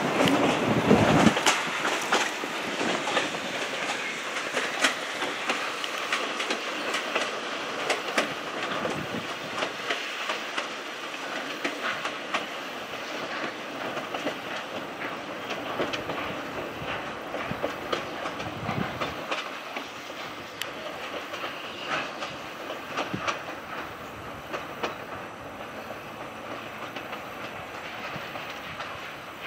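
A train's cars and caboose rolling away on jointed track, wheels clicking over the rail joints. The sound fades steadily as the train recedes.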